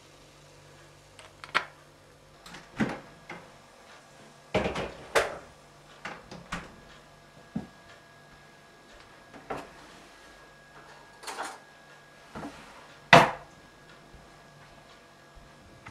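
Kitchen handling noises: a string of separate knocks and clunks, the loudest about two seconds before the end, over a faint low hum.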